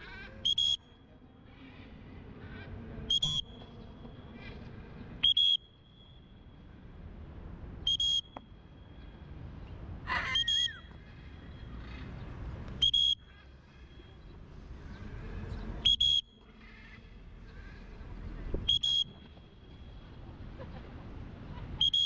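Short, shrill whistle blasts on one high pitch, about nine of them, repeated every two to three seconds over a low background hum.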